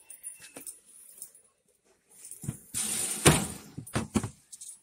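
Rigid cardboard storage boxes being shifted and set down on a metal store shelf: a few faint clicks, then from about halfway in a stretch of scraping with several sharp knocks.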